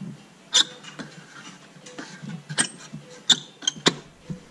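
Small hinged metal lid in a 1937 Buick McLaughlin's upholstered interior panel being worked open and shut by hand: about five sharp metallic clicks and snaps, one about half a second in and a quick cluster near the end.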